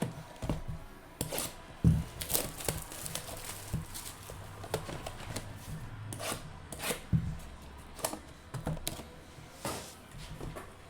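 Trading-card pack wrappers being torn open and cards handled on a tabletop: an irregular run of crinkles, clicks and taps, loudest a single knock about two seconds in.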